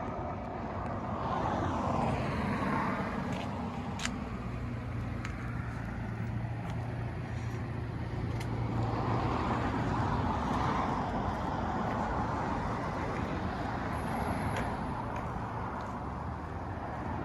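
A motor vehicle running on the road: a steady engine hum and tyre noise that swell and fade as it moves.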